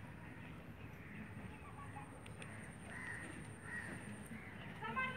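Crows cawing faintly a few times over a low, steady background rumble.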